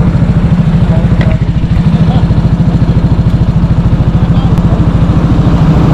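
Motorcycle engine idling with a steady, rapid low putter of about a dozen beats a second.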